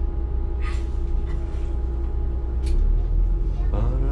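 Electron city bus running in slow traffic, heard from the driver's cab: a steady low rumble with a faint steady hum, two short hisses, and a rising note near the end as the bus pulls forward.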